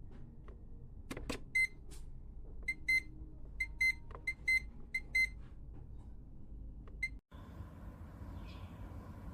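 Electronic beeps from a mini dehumidifier's control panel as its buttons are pressed: about a dozen short high beeps, several in quick pairs, with a click or two before the first. After a sudden cut about seven seconds in, a steady low hum takes over.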